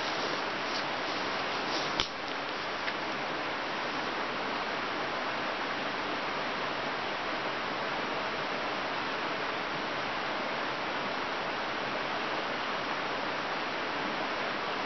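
Steady rushing of flowing river water, an even hiss with no change in level. A single sharp click about two seconds in.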